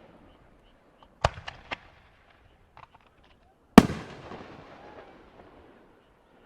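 Aerial fireworks bursting: a sharp bang about a second in, followed quickly by two smaller cracks, then a loud boom near four seconds with a long rolling echo that fades away.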